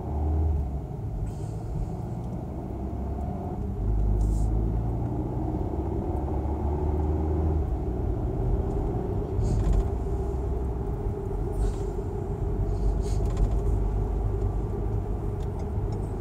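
Car engine and road noise heard from inside the cabin while driving: a steady low rumble, with a faint engine note that rises slowly in the second half and a few short faint clicks.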